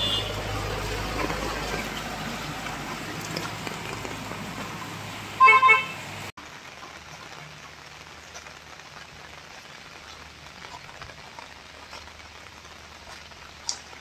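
A vehicle's engine running, with one short horn toot about five and a half seconds in. The sound then cuts off abruptly to steady rain falling.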